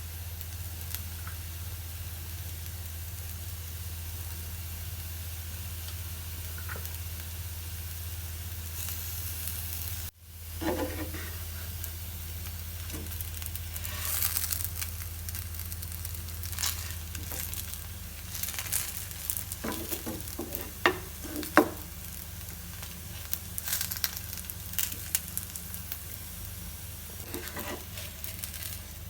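Potato pancake frying in oil in a pan, sizzling steadily over a low hum. After a break about ten seconds in, a utensil scrapes and taps against the pan several times.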